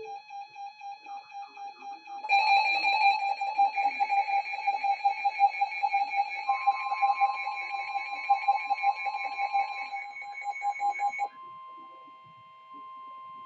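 Electronic emergency-alert tones. A rapidly pulsing beep with many overtones gets louder and busier about two seconds in, and a steady higher tone joins it about halfway through. Near the end the pulsing stops and only steady tones remain, at a lower level.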